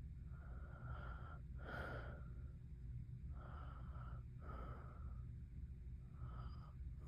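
A sleeping woman snoring lightly: three slow breaths, each a drawn-in snore followed by a breathy out-breath.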